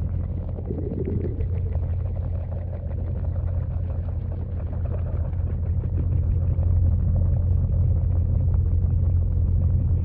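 Steady, muffled low rumble of a pond waterfall's churning water, heard underwater through a GoPro's waterproof housing.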